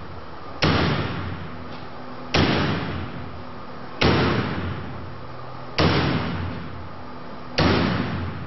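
An axe striking a GuardianCoil woven wire security drapery in a forced-entry test: five hard blows, about one every two seconds, each trailing off over about a second.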